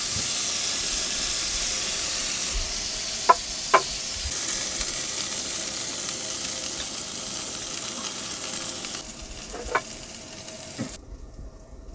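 Steaks sizzling in a hot Lodge cast iron skillet as they are forked out onto plates. Two sharp clinks come a little over three seconds in and two more near the end, when the sizzling drops away.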